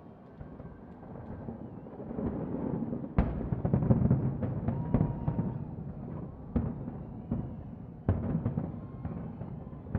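Distant fireworks display: a continuous low rumble of shell bursts with sharp bangs, the first loud one about three seconds in and more every second or two after.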